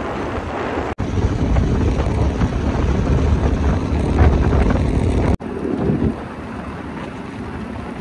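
Wind buffeting the microphone while riding along a road, with the vehicle's steady rumble underneath. The sound cuts out abruptly twice, about a second in and again past five seconds, and is quieter after about six seconds.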